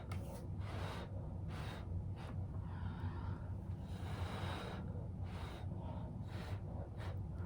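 A person blowing air by mouth across wet acrylic paint in a run of breath puffs, mostly short with one longer blow about two to four seconds in, spreading the paint in a Dutch pour.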